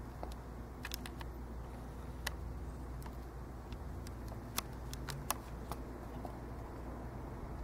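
Handling noise of a handheld camera: about a dozen small, sharp clicks and taps at irregular intervals over a steady low hum.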